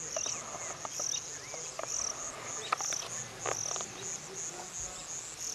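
Insects chirping in short high-pitched pulses, about three a second, with scattered faint clicks.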